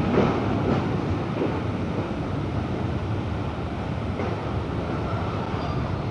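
Passenger train running slowly alongside a station platform, heard from the carriage: a steady rumbling noise with a couple of brief knocks in the first second.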